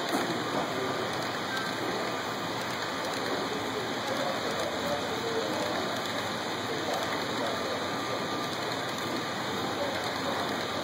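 HO-scale model freight train's metal wheels rolling over the track, a steady, even rushing noise at constant level.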